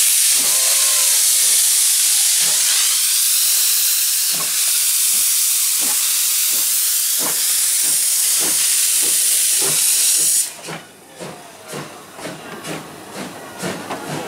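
CK124 steam locomotive, a C12-class tank engine, starting a train: a loud steady hiss of steam from the open cylinder cocks, with exhaust chuffs beating through it about every two-thirds of a second. About ten seconds in the hiss cuts off suddenly, and the exhaust beats carry on, quicker and quieter.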